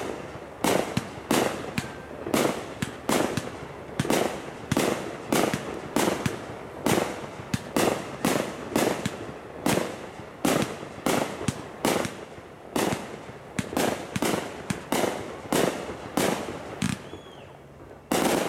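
Aerial fireworks shells bursting overhead in a rapid string of sharp bangs, about one to two a second, with a short lull near the end before one last loud bang.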